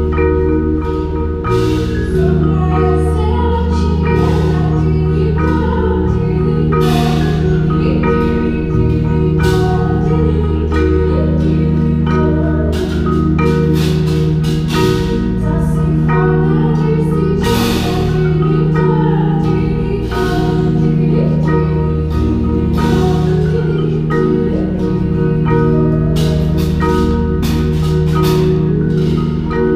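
Winter percussion ensemble performing: marimbas and other mallet keyboards play moving lines over sustained low chords, with occasional sharp percussion hits.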